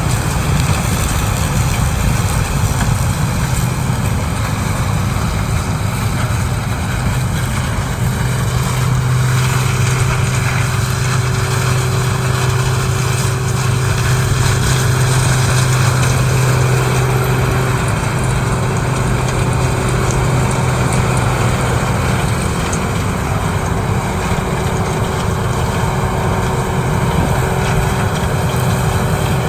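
CLAAS Mega 204 combine harvester running steadily while harvesting corn, its engine and machinery a loud, continuous drone with a low hum that grows stronger for several seconds in the middle.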